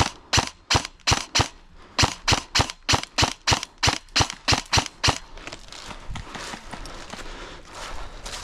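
Airsoft replica firing a rapid string of single shots, about three a second, sharp cracks that stop about five seconds in. After that comes a steady rustling of movement through the undergrowth.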